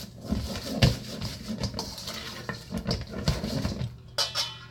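Sauce-coated fried chicken wings tossed in a bowl: irregular sticky, squelching thuds as the wings tumble through the thick sauce.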